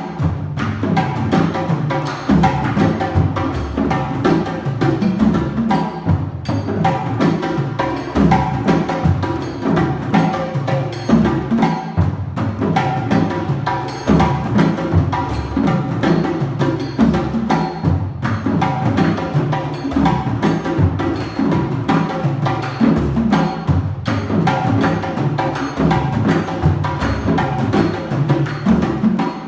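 West African drum ensemble playing a repeating rhythm: hand-played djembe over first and second dundun bass drums struck with sticks.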